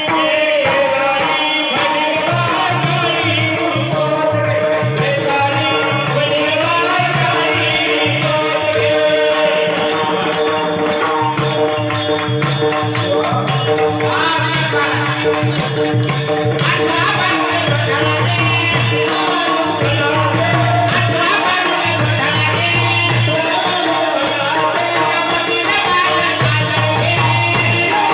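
Bharud, a Marathi devotional folk song: a voice singing a melodic line over held steady accompanying notes, a low rhythmic beat and jingling percussion.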